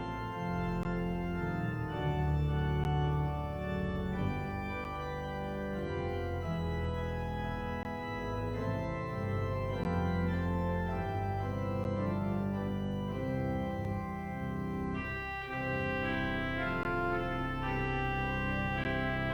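Organ postlude: sustained chords with a moving bass line, changing every second or so.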